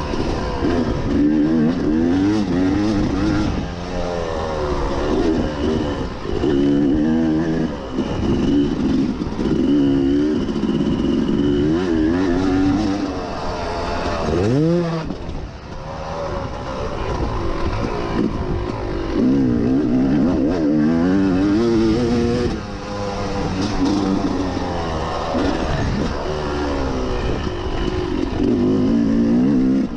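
Yamaha YZ250 two-stroke single-cylinder dirt bike engine under riding, its revs rising and falling again and again with the throttle and gear changes. About halfway through, the revs drop briefly and then climb sharply.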